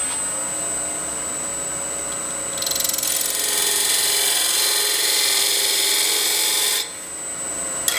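Wood lathe running steadily with a faint whine. From about two and a half seconds in until near the end, a parting tool cuts a marking groove into the spinning wooden insert: a loud, even scraping hiss lasting about four seconds, then the lathe alone again.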